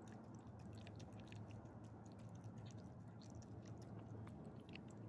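A small dog licking and chewing soft wet food from a person's hand: faint, quick wet smacks and clicks, over a low steady hum.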